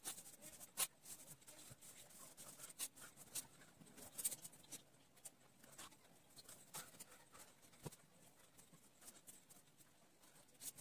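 Fine-tip pen scratching on paper in short, irregular strokes as small line patterns are inked; faint.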